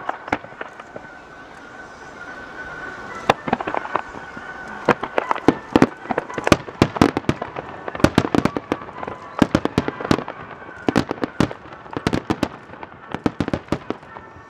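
Fireworks popping and crackling in quick, irregular bursts of sharp reports, thickest in the middle of the stretch.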